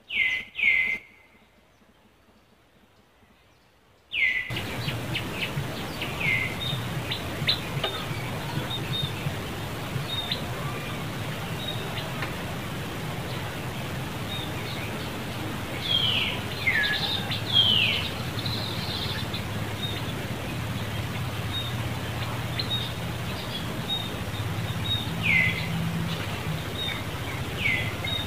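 Short, high chirping calls that fall in pitch, heard singly or in pairs every few seconds over a steady low outdoor hum. The hum drops out for the first few seconds and then comes back.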